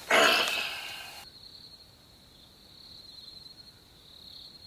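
Crickets chirring steadily in the background. About the first second is covered by a louder, short rustling noise that fades out.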